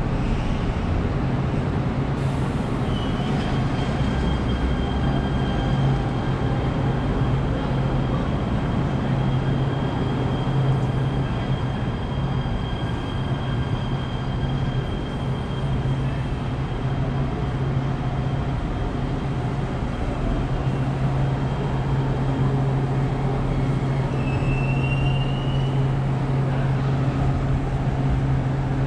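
Los Angeles Metro light rail train standing at a station platform, its onboard equipment giving a steady low hum. A thin high whine holds for a long stretch, then rises briefly near the end.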